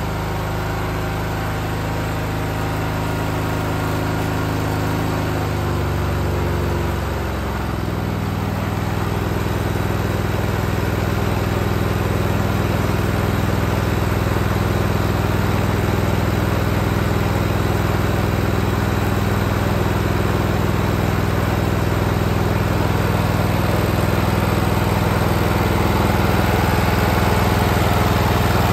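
Kohler Courage 20 engine of a Cub Cadet LT1045 lawn tractor running. Its pitch shifts downward about six to seven seconds in, then it runs steady.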